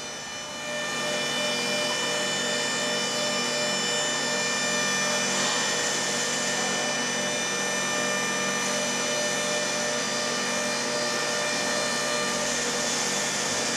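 Hydraulic power unit starting up about a second in, then its motor and pump running steadily with a whine.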